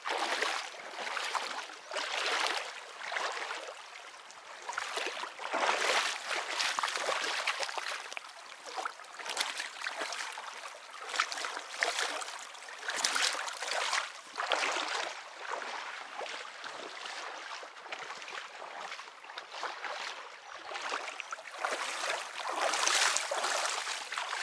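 Rubber boots wading through shin-deep snowmelt floodwater, sloshing and splashing with each stride, in swells every second or two.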